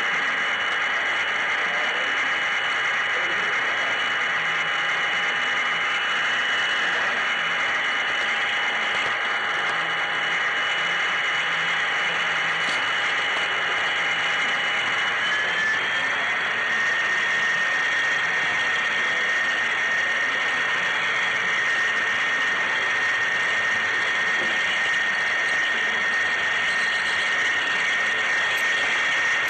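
HO-scale model train running along the track, heard from on board: a steady rolling rattle of wheels on rail, with a thin motor whine that steps up to a higher pitch about halfway through.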